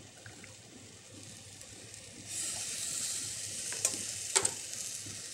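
Arborio rice sizzling in a hot saucepan, a steady hiss that picks up about two seconds in as simmering stock is added, with two sharp clicks a little later.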